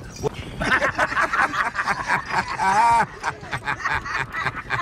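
A man laughing in quick chuckles and snickers, with one longer rising-and-falling laugh about three seconds in.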